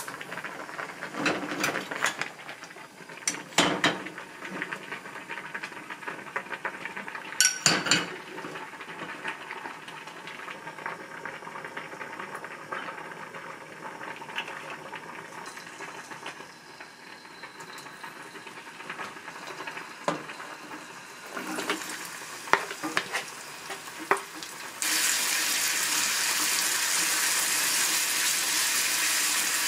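Kitchen work: a few sharp clinks and knocks of utensils against dishes, then about 25 seconds in, food frying in a hot pan starts to sizzle suddenly and keeps up a steady sizzle.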